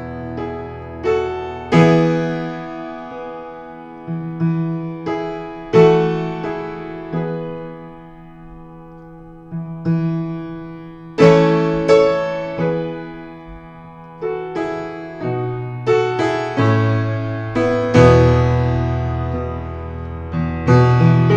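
Acoustic upright piano played solo: slow chords struck every second or so and left to ring and fade, with deep bass notes under them.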